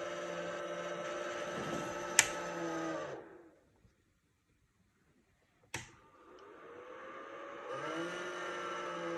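A steady humming drone made of several stacked tones. About two seconds in there is a sharp click, and the hum winds down, its pitch falling, into silence. A second click comes about two seconds later, and the hum winds back up, rising in pitch until it is steady again near the end.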